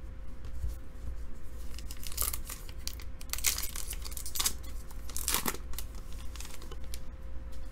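Trading cards and their paper packaging being handled: a run of papery swishes, scrapes and crinkles starting about two seconds in, loudest around the middle, then dying away near the end.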